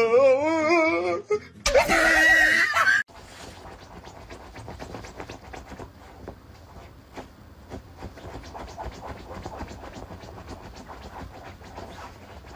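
A small dog gives two loud, wavering, whining cries, the second ending abruptly about three seconds in. Then comes soft, steady scratching and rustling of bedding as a small white dog digs and burrows at the covers.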